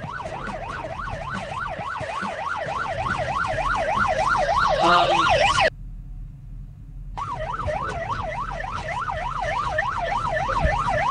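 Ambulance siren in a fast yelp, its pitch sweeping up and down several times a second and growing louder. It stops about six seconds in and starts again about a second and a half later, this time as the same siren re-synthesised from a neural-network spectrogram reconstruction.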